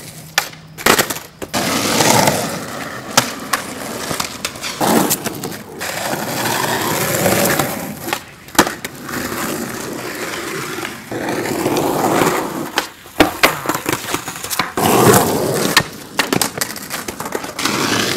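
Skateboard wheels rolling over rough asphalt and concrete, the rumble coming and going in stretches of a few seconds, with several sharp clacks of the board hitting the ground.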